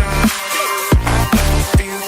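Electronic dance music with a heavy bass line and a steady drum beat, a hit about every half second.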